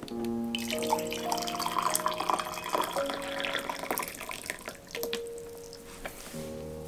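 Water poured from a kettle into a ceramic mug, a steady splashing stream that starts about half a second in and tails off after about four seconds. Soft melodic music plays underneath.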